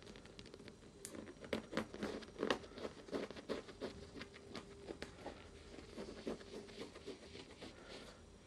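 Fingernails scratching and tapping on the leather-covered backrest of a gaming chair. It is a quick, irregular run of soft scratches that starts about a second in, is busiest soon after, and stops near the end.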